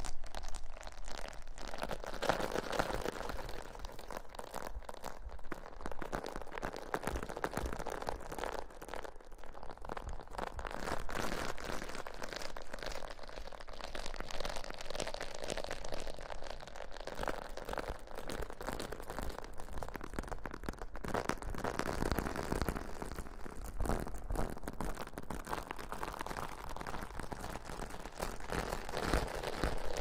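Fingertips rubbing and scratching directly on a microphone, a close, steady crackly rustling that swells and eases throughout.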